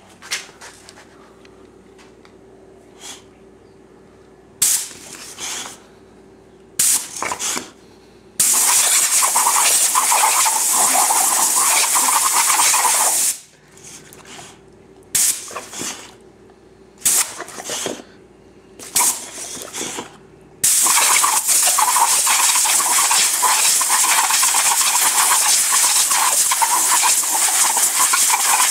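Compressed air hissing from a rubber-tipped air blow gun fed by an air compressor. It comes in a series of short blasts, with two long steady blasts of about five and eight seconds, the second starting about two-thirds of the way through.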